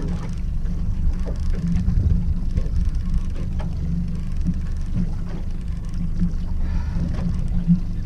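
Steady low rumble of a small aluminium boat on open water, with faint scattered ticks and clicks.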